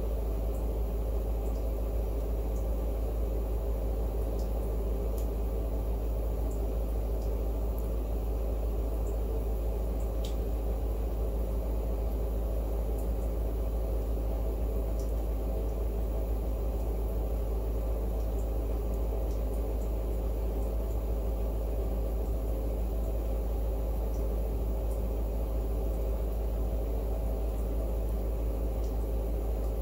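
A steady low hum with an even hiss over it, unchanging throughout, with a few faint tiny ticks.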